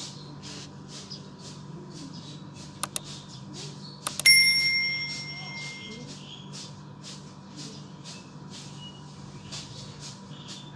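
Subscribe-button sound effect: two quick clicks, then another click and a bright bell ding that rings out and fades over about a second and a half.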